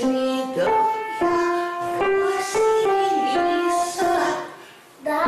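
Piano playing a slow melody of single held notes; the music fades away near the end, then comes back.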